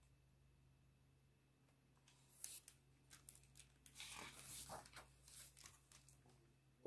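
Paper pages of a picture book rustling and flipping as the book is handled and a page is turned: a string of soft papery crackles and light taps starting about two seconds in, thickest near the middle.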